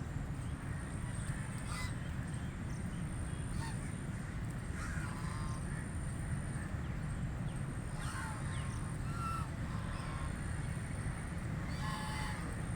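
Pekin ducks giving short, scattered quacks every second or two, over a steady low rumble and a thin, steady high-pitched tone.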